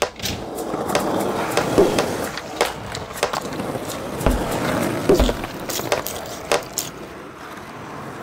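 Skateboard wheels rolling over rough pavement at speed, with a steady gritty roll broken by many sharp clicks over cracks and seams. Two low thuds come about four and five seconds in.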